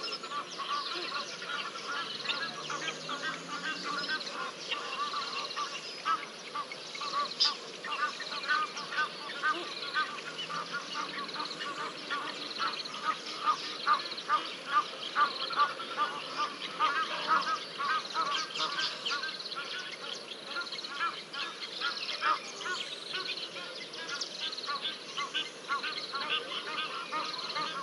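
Egyptian geese honking in a long, rapid, chattering series of calls, loudest about halfway through.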